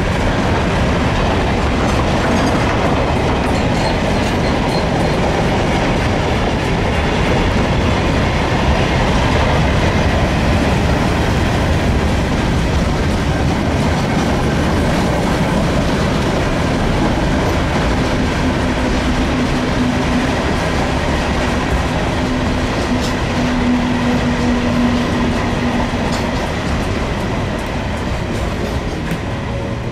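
Container freight train rolling past: a steady rumble and clatter of the wagons' wheels on the rails. A low steady hum stands out for several seconds in the second half, and the sound eases off slightly near the end.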